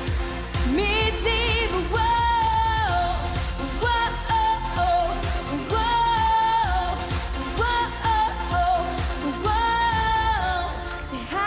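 Pop song with a young singer's voice holding long notes with vibrato, phrase after phrase, over a backing track with a steady beat.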